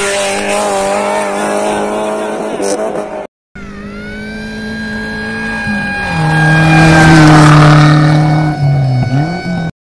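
Maruti Gypsy rally cars driven hard on a dirt track: engines running at high revs over gravel and tyre noise, in two shots joined by a short cut about a third of the way in. In the second shot the engine note steps down about six seconds in and again near the end, and the noise is loudest around seven to eight seconds.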